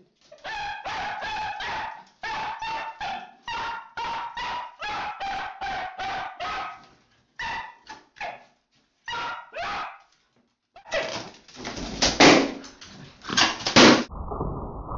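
Long-haired dachshund barking harshly in a fast, steady run of high, sharp barks, breaking off a few times. Near the end come loud, noisy scuffling bursts, the loudest two close together.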